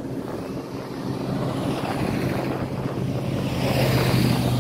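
Road traffic: a vehicle approaching and passing close, its engine hum and tyre noise growing steadily louder to a peak near the end.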